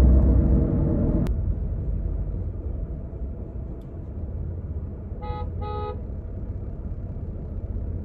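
Low rumble of a car, heard from inside its cabin, stronger at first. About five seconds in, another car's horn honks twice: two short beeps in quick succession.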